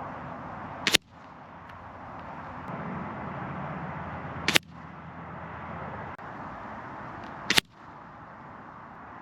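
Benjamin Armada .22 PCP air rifle firing three shots, each a short sharp report, about three to four seconds apart.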